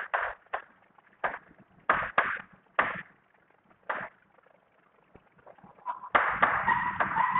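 Chalk writing on a blackboard: short scratchy strokes, one after another, with a pause in the middle. In the last second and a half the strokes become denser and louder, with a steady high squeak mixed in.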